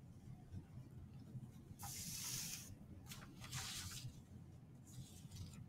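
Spiral notebook being slid by hand: two papery swishes about two and three and a half seconds in, and a fainter one near the end, over a faint steady low hum.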